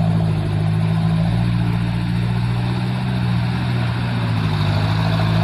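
Diesel engine of a Mitsubishi Fuso Canter HD 125 PS truck laden with oil palm fruit, running steadily under load at an even pitch.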